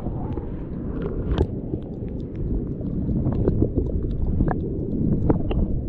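Underwater sound of a rocky tide pool, heard through a submerged camera: a dense, muffled low rumble of moving water with many scattered sharp clicks and ticks.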